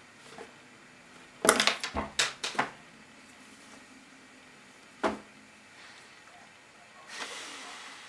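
A quick run of sharp knocks and taps about a second and a half in, a single knock about five seconds in, and a soft rustle near the end, from a pen and hands on a wooden table over an open book.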